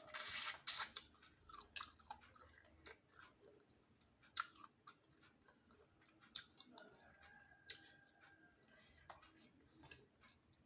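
A person eating close to the microphone: chewing with wet mouth clicks and smacks. A loud, short hissing burst comes in the first second.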